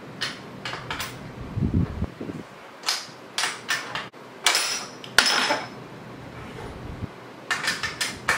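Metal wrench from an AeroPilates reformer's tool kit clicking and clanking against a carriage wheel's nut as it is hooked on and yanked to break the nut loose. It comes as irregular clusters of sharp clicks, the strongest about four and a half to five and a half seconds in.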